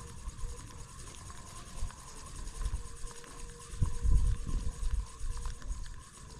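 Wind buffeting the microphone in irregular low gusts, strongest about four seconds in.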